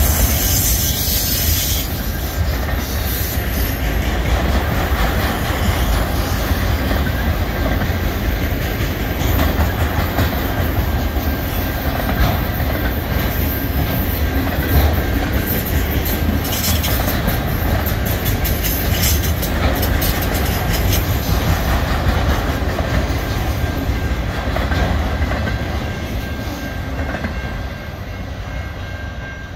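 Freight train of auto rack cars rolling past at close range, a steady rumble of steel wheels on rail with clicks as the wheels cross the rail joints. It fades over the last few seconds as the final car goes by and moves away.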